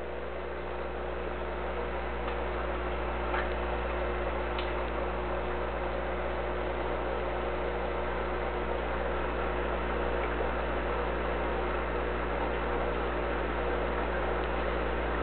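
Steady hum of an aquarium air pump, with an even hiss of bubbling water over it, growing slightly louder over the first few seconds.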